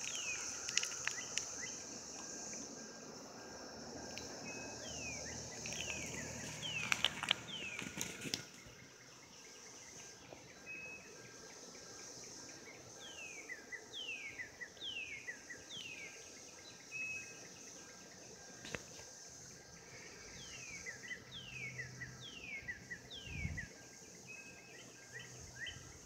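Chorus of periodical cicadas, a steady high-pitched drone that fades after about eight seconds, with a bird singing groups of three or four quick downslurred whistles. A few sharp clicks about seven seconds in.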